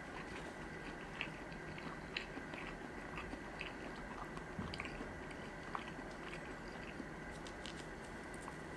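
Close-miked chewing of sushi: soft, wet mouth sounds with small clicks at irregular moments.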